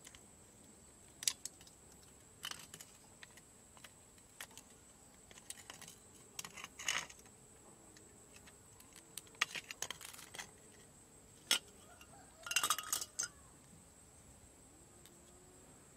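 Copper windings being pried and scraped out of a car alternator's stator with a hand tool: scattered sharp clicks and light metallic clinks, with a quick run of rapid clinks near the end.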